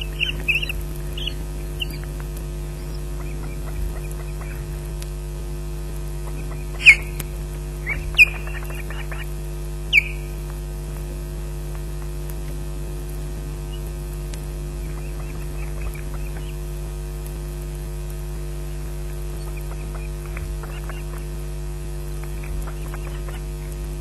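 Osprey calls: a few short high-pitched calls in the first two seconds, then three loud, sharp calls about 7, 8 and 10 seconds in, each falling in pitch. A steady electrical hum runs underneath.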